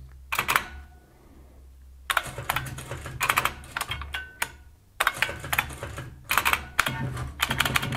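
Keys of an IBM 6780 Quietwriter electronic typewriter's keyboard, which is very loud, clacking in quick clusters of keystrokes with short pauses between them. The keystrokes are accent keys and letters typed to compose accented characters.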